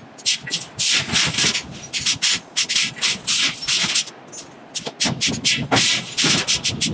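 Forging hammer working a red-hot iron billet on the anvil: a quick, irregular run of blows with hissing, crackling bursts.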